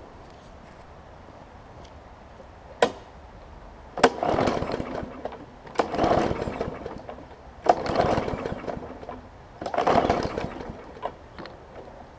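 Briggs & Stratton 500E series push-mower engine being pull-started four times: each pull starts with a sharp click, then the recoil rope whirs and the engine turns over for about a second without catching. A no-start, which the owner puts down to old gas, oil or water clogging the carburettor's main jet.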